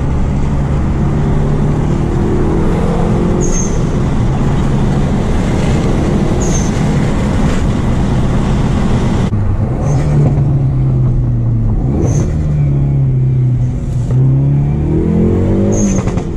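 Hyundai Veloster N's turbocharged 2.0-litre four-cylinder accelerating through the gears, heard from inside the cabin: the engine note climbs and drops several times with the shifts. An HKS SSQV4 pull-type blow-off valve vents in short bursts each time the throttle lifts.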